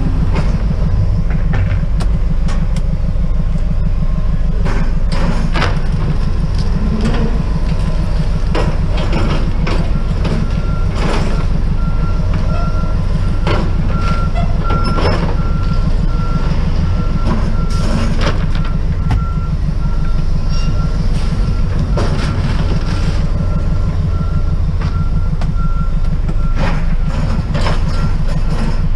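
Vehicle engine running, a heavy low rumble with scattered knocks and rattles. From about ten seconds in, a faint high beep repeats steadily over it.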